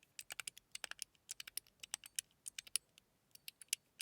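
Mechanical fidget slider, a Metal Toys Bubble, being slid back and forth: quick runs of sharp, light clicks as its detents snap, several a second.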